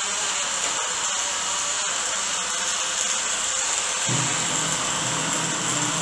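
Portable bottle blender running, its small motor giving a steady whir as it blends guava with water; a lower hum joins about four seconds in.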